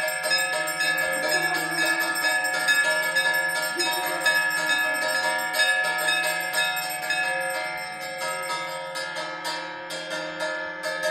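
Temple arati bells rung fast and without pause, several bright overlapping ringing tones sounding together.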